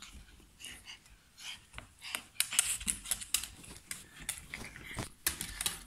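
Small dog's claws clicking quickly and irregularly on bare wooden floorboards as a Yorkshire terrier scampers about. The clicking starts in earnest about two seconds in.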